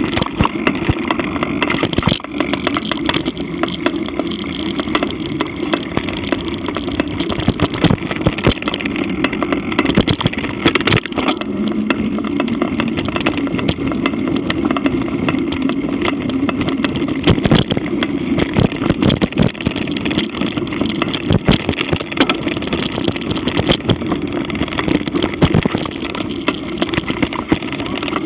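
Mountain bike riding fast over a dirt singletrack, heard from an action camera on the bike or rider: a steady rush of wind and tyre noise, with constant rattling clicks and knocks as the bike goes over bumps and roots.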